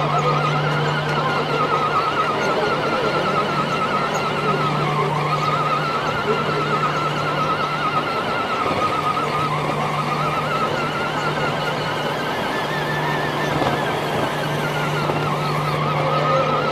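Electric motor and gearbox whine of a Cross RC scale crawler driving, heard close up from on board, its pitch wavering up and down with the throttle. Underneath is a low steady hum that drops out several times.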